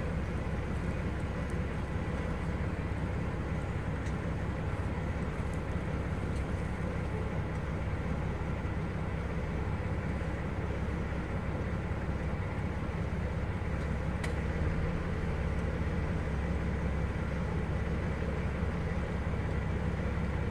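A steady low rumble, growing slightly louder about two-thirds of the way through.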